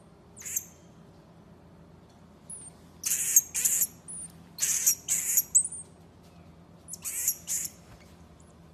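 Common marmoset giving shrill, very high-pitched calls: one brief call at the start, then clusters of two or three harsh squeaky calls about three, five and seven seconds in, with faint short chirps between them.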